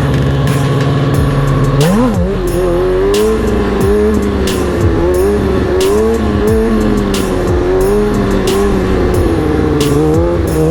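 Sport bike inline-four engine running at a steady pitch, then from about two seconds in revving up and rising and falling as the throttle is worked. Music with a steady beat plays over it.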